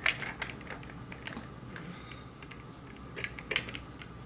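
Scattered small clicks and taps of a lock cylinder, its key and a vise being handled, with a sharp click right at the start and a quick cluster of clicks about three and a half seconds in.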